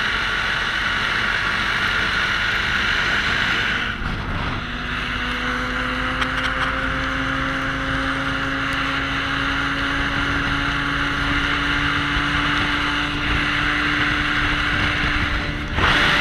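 Lynx Adventure LX 600 ACE snowmobile's four-stroke twin-cylinder engine running as it travels over lake ice, under a steady rushing noise. From about four seconds in, the engine note climbs slowly in pitch as the revs build. The sound changes again near the end.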